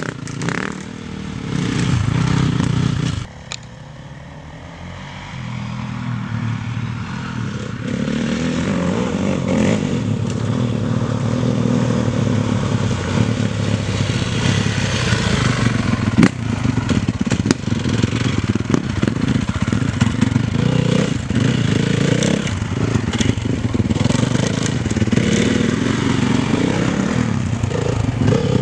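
Honda CRF450 dirt bikes' single-cylinder four-stroke engines running and revving off-road, the pitch rising and falling with the throttle. The sound drops suddenly about three seconds in, then builds back up.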